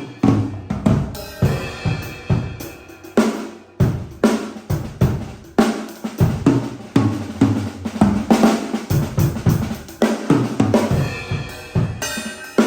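MK drum kit played as a groove with fills: bass drum, snare, hi-hat and cymbals, the stock heads and cymbals heard raw and unprocessed.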